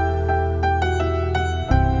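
Instrumental song intro: a quick melody of separate notes, about four a second, over a held low chord that changes near the end.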